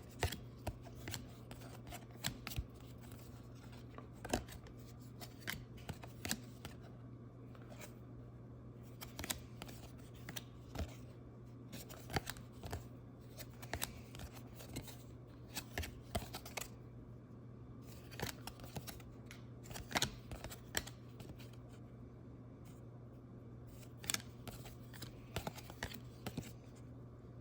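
Topps baseball cards being handled and flipped through, giving irregular soft clicks and slides of card stock, over a steady low hum.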